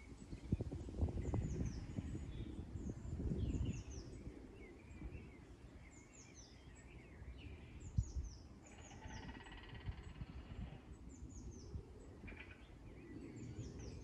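Small birds chirping and singing outdoors, with many short high sweeping notes. Wind rumbles on the microphone, strongest in the first few seconds, and one sharp knock sounds about eight seconds in.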